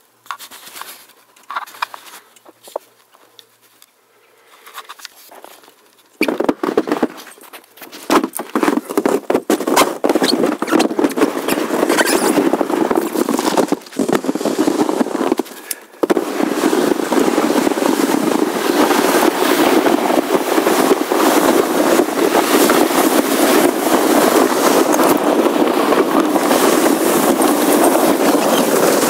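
Sled runners sliding fast over packed snow: a loud, continuous scraping hiss with rapid crackle that starts about six seconds in, after a few quiet seconds of light handling noises. It breaks off briefly twice, then runs on steadily.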